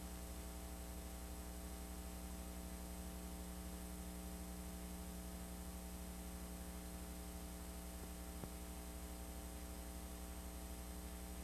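Steady low electrical hum and buzz over a hiss, from a blank stretch of old videotape, with one faint tick about two-thirds of the way through.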